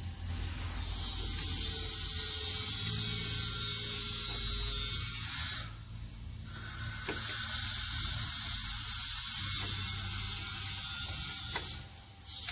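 Steady mechanical rasping noise in two long stretches, broken by a short pause about six seconds in and stopping again just before the end, over a constant low hum.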